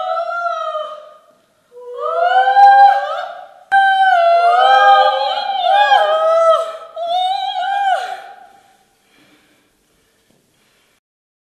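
Two women singing in high voices without accompaniment, sliding between notes and overlapping in the middle, with a short break early on and the singing fading out about nine seconds in.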